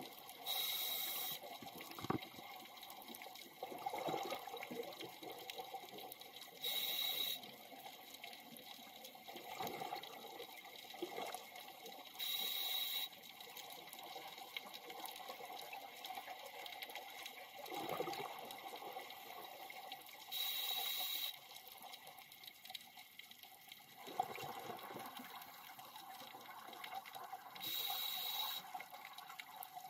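Scuba diver breathing through a regulator underwater: five short hissing inhalations, each with a faint whistle, alternating with longer bubbling exhalations, about one breath every six to eight seconds.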